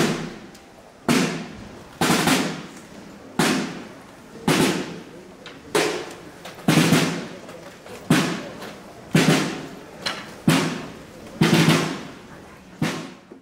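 Procession drum beaten in a slow, steady funeral-march beat, a single heavy stroke about once a second, each one ringing out before the next.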